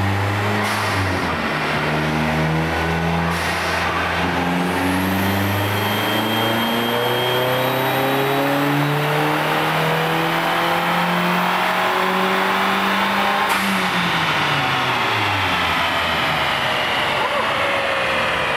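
Dodge Neon SRT-4's turbocharged 2.4-litre four-cylinder run hard on a chassis dyno, its pitch climbing in steps under load, with a faint high turbo whistle above it. About 13 and a half seconds in the whistle cuts off and the engine and spinning roller wind down.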